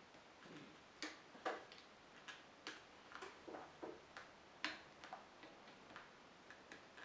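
Faint, irregular clicks and ticks, a few of them louder, as the frame around a Bang & Olufsen BeoLab 3 loudspeaker's passive driver is worked loose by hand and with a pry tool.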